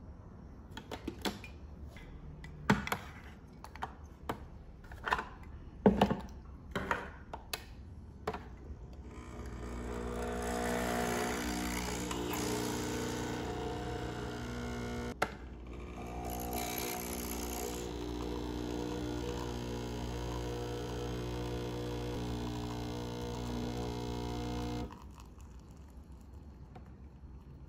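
A handful of sharp clicks and knocks as a Nespresso capsule machine is handled and closed, then the machine's pump buzzing steadily for about fifteen seconds as it brews coffee into a mug, with a click and short dip part way through; it stops abruptly.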